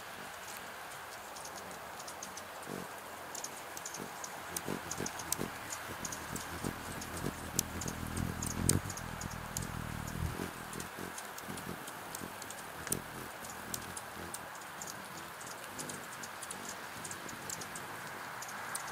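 Steady rain with drops tapping irregularly on a clear plastic rain shield over a hummingbird feeder, a patter of sharp ticks. A low rumble swells and fades in the middle.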